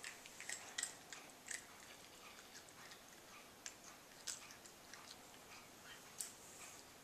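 A cat crunching dry treats, a faint run of irregular sharp crunches that come thickest in the first couple of seconds and then more sparsely.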